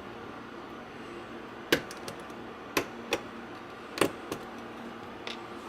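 A handful of sharp metallic clicks and taps, irregularly spaced, as the retaining clip is worked off the back of a Corbin rim cylinder lock.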